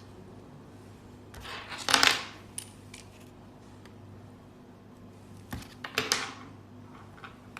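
Small hard parts, likely the tube fittings, being handled: clinks and scrapes, with a louder burst about two seconds in, another around six seconds, and a few light clicks between.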